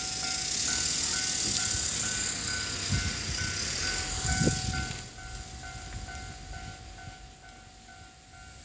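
Japanese railway level-crossing warning bell ringing steadily, about two strokes a second, as a Marine Liner electric train runs over the crossing. The train's rushing wheel-and-rail noise, with a couple of thumps, fades after about five seconds while the bell keeps ringing.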